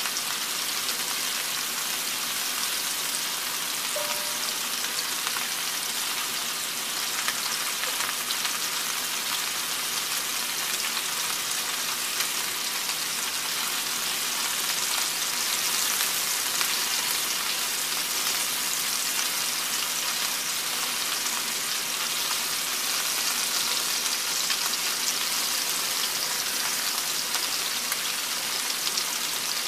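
Meatballs frying in hot oil in a cast-iron skillet: a steady crackling sizzle.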